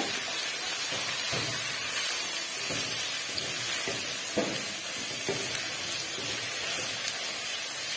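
Mutton pieces with garlic and ginger paste sizzling steadily as they fry in hot oil in a pan, stirred with a spatula that makes a few soft scraping strokes.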